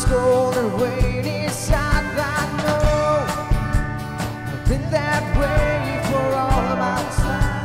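Live band playing: strummed acoustic guitar and electric bass over a steady beat, with a male voice singing into a microphone.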